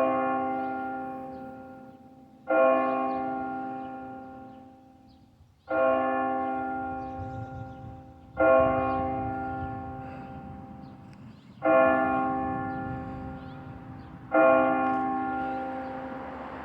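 A single church bell tolling the hour at noon: six slow strokes on the same note about three seconds apart, each ringing out and fading before the next.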